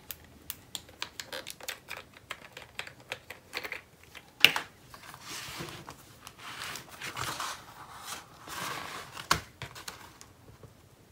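Paper and small craft tools handled on a work table. A quick run of light clicks and taps comes first, with one sharper click about halfway through, then a few seconds of paper rustling and sliding before it goes quiet near the end.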